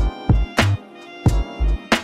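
Background music with a steady drum beat and heavy bass under sustained instrumental tones.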